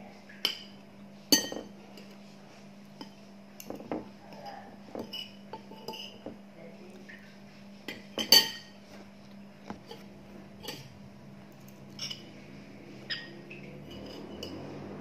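Metal spoon and fork clinking and scraping against a ceramic plate while eating fried rice and eggs: a string of sharp, ringing clinks at irregular intervals, the loudest about a second in and again about eight seconds in.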